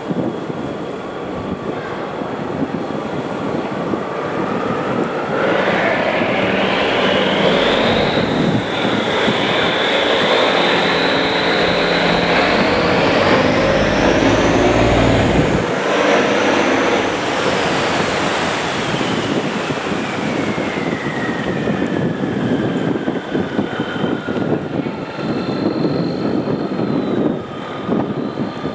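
Boat engine running hard, its whine climbing over several seconds, holding high, then slowly falling away, which gives it the sound of a propeller airplane. Wash of water and wind underneath.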